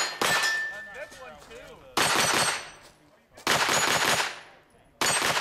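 Pistol-caliber carbine fired as spaced single shots, four of them about one and a half seconds apart, each with a long echoing tail.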